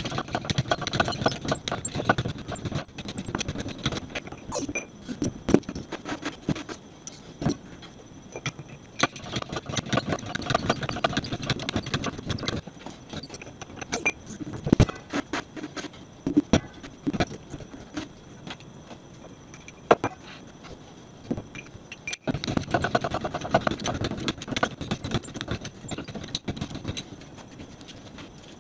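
Hydraulic bottle jack being pumped by hand in three bursts of rapid clicking and knocking, pressing on a tyre sidewall to break the bead, with single knocks between the bursts.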